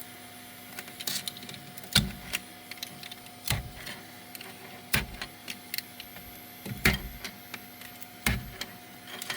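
Freshly printed PLA hanger connectors being handled: irregular sharp clicks and knocks of hard plastic, about seven in all, over a steady low hum.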